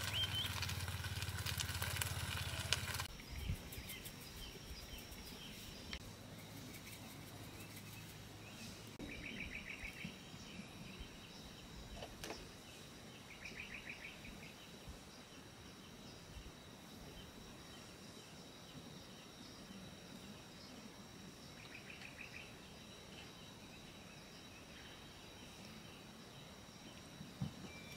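An egg and baked beans sizzling in a pan over a gas camp stove, with the burner's low hum, for about three seconds until it cuts off. After that comes faint outdoor quiet with a thin steady high insect drone and three short pulsed trills.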